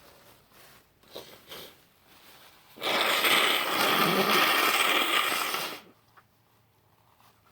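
Two quick sniffs, then a woman blowing her nose hard into a tissue for about three seconds.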